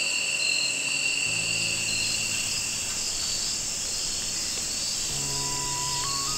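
Steady chorus of crickets and other insects, several constant high-pitched trills at once, with soft background music coming in and out underneath.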